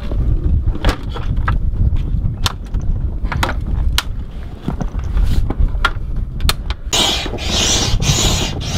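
Aluminium floor panels and side rails of an inflatable dinghy clicking and knocking as they are fitted together, over a steady low rumble. About seven seconds in, a hand pump starts forcing air through its hose into the dinghy in a few hissing strokes.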